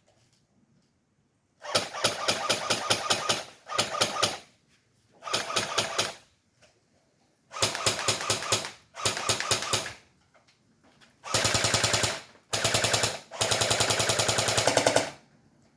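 Airsoft MP40 submachine gun firing on full auto: a series of short bursts of rapid, evenly spaced shots, the last burst the longest.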